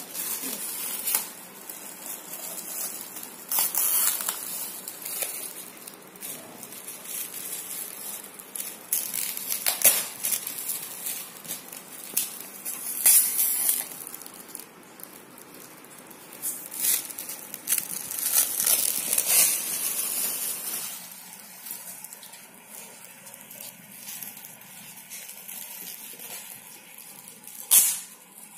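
Crinkling and tearing of metallic foil gift wrap and cellophane as a present is unwrapped by hand, in irregular rustling surges, with a sharp loud crackle just before the end.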